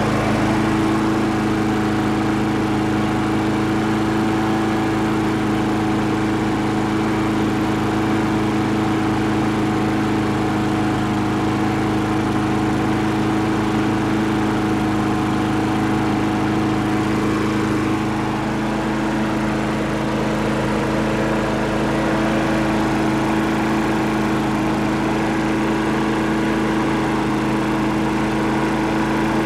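Craftsman push mower's single-cylinder engine running steadily at a governed speed of about 3,200 rpm, faster than the roughly 3,000 wanted. Bending the governor spring tab makes no change in the speed, because a bent tab on the throttle arm is catching on the carburetor.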